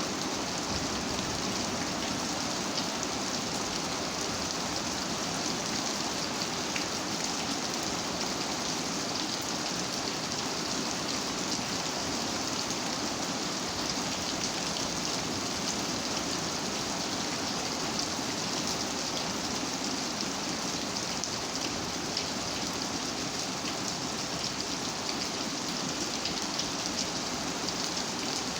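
Steady rain falling, a dense even patter of drops on a surface that does not change.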